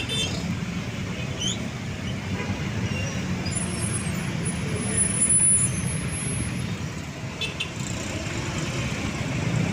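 Road traffic noise with a heavy vehicle's engine running steadily, louder briefly about five seconds in, and a few faint short high chirps.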